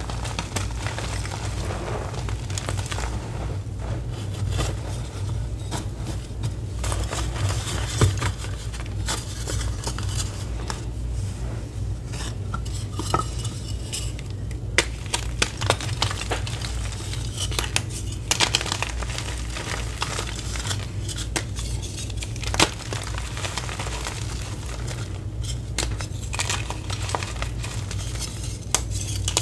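Thin slabs of reformed gym chalk handled and broken in a bed of loose chalk powder. Scattered sharp clicks and clinks come as the hard pieces knock together and snap, over soft, gritty crunching and a steady low hum.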